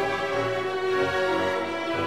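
Orchestral music with long held string notes.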